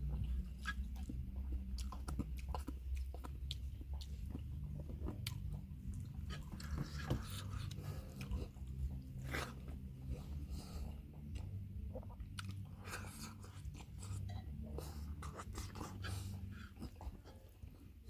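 A person chewing and biting food close to the microphone, with many irregular wet mouth clicks and small crunches over a steady low hum.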